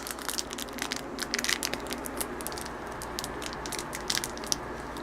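Bicycle chain being handled, its links clicking and rattling in short irregular bursts, busiest in the first couple of seconds.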